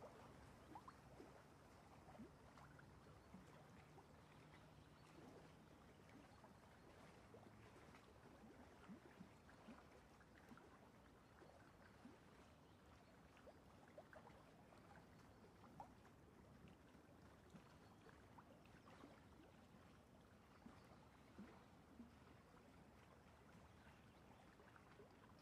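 Near silence: faint room hiss with scattered soft ticks.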